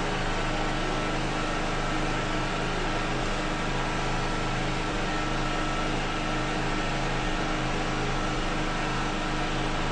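A steady machine hum over an even hiss, holding unchanged throughout, with several low droning tones and a faint higher whine.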